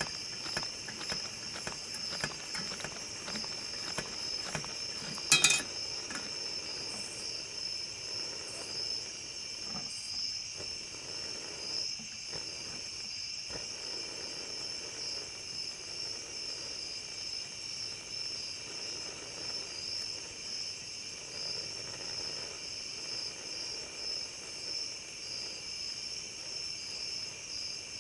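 Steady chorus of night insects, crickets, chirring. There are a few light clicks early on and one sharp knock about five seconds in.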